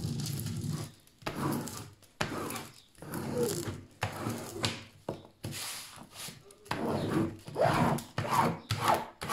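Plastic scraper rubbed in repeated sweeping strokes, about one a second, across the plastic protective film of a diamond painting canvas, pressing out air bubbles trapped under the film.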